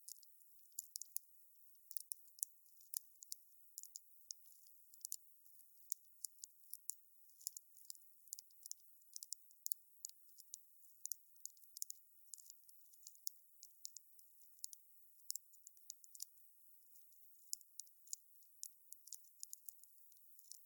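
Wood fire crackling: a steady run of sharp, irregular pops and snaps over a faint hiss, thin and high with no low rumble.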